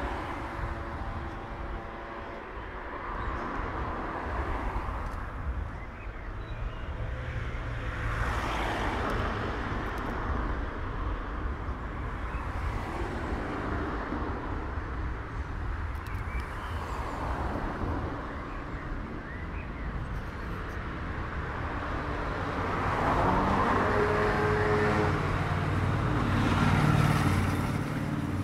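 City street traffic: cars passing one after another, each swelling and fading, with an engine running louder near the end.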